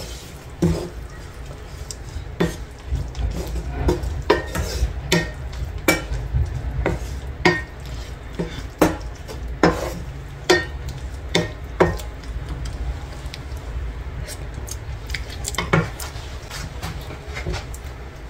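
A utensil stirring pork and shrimp paste in a frying pan, knocking and scraping against the pan about once a second. The strokes grow sparser in the last few seconds.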